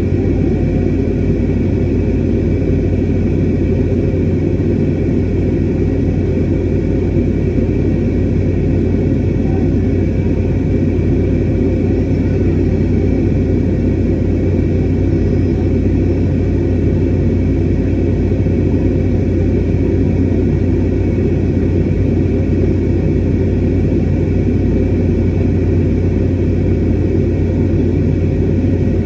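Steady drone inside an airliner cabin in flight: a low rumble of engine and airflow noise with faint steady tones above it.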